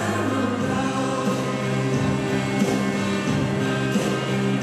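Background music with choir-like singing over held chords and a slow, steady beat.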